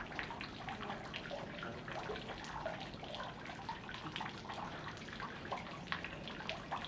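Water splashing and trickling steadily, with many small irregular splashes.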